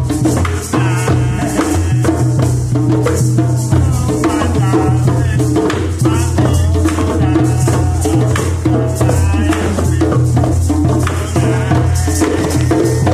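Group hand drumming: djembes and a tall hand drum struck with bare hands in a steady, interlocking rhythm, with a man's voice singing along.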